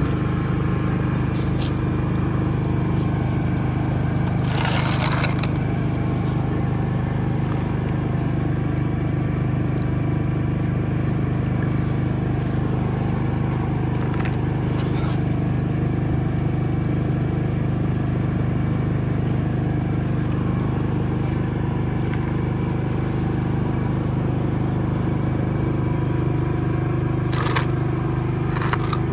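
High-pressure drain-jetting machine running steadily, its engine and pump giving a constant low hum. Three short bursts of noise break over it, about five, fifteen and twenty-seven seconds in.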